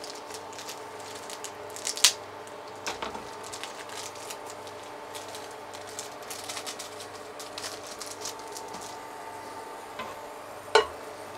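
Instant-noodle seasoning sachet crinkling and rustling as its powder is shaken into a saucepan, with a sharp click about two seconds in and another near the end.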